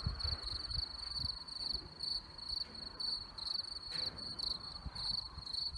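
Crickets chirping in a steady, even train of high chirps, over a low, uneven rumble.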